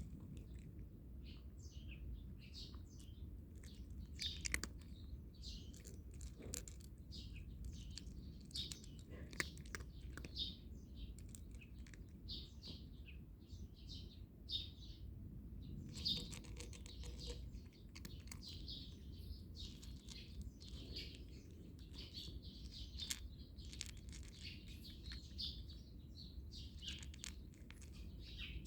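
Small birds chirping on and off, with a steady low rumble underneath and a few scattered sharp clicks.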